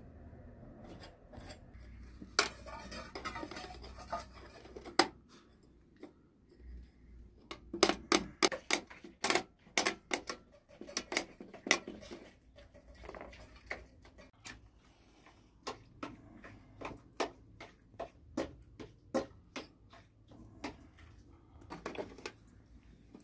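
Dishes and utensils being handled, giving irregular sharp clinks and knocks that come thickest a few seconds in.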